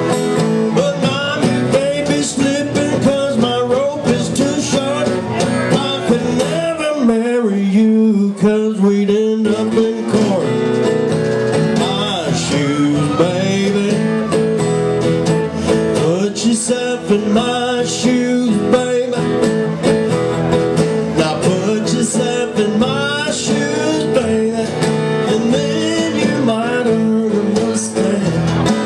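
Live guitar music playing a stretch of a country-blues song with no sung words.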